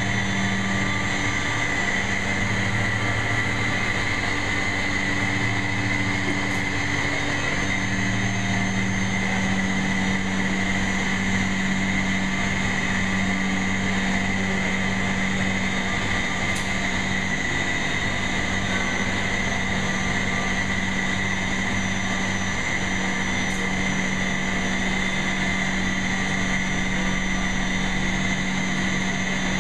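A crane's engine running steadily under load while it lowers a stainless steel fermentation tank through the roof: a low, even drone whose hum wavers slightly every few seconds, with a steady high hiss over it.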